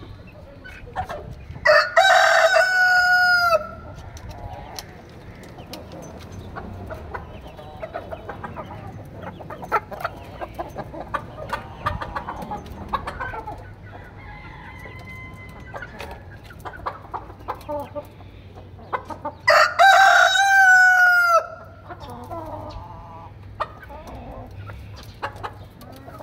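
A rooster crows twice, each crow about two seconds long and far louder than anything else. Hens cluck quietly between the crows.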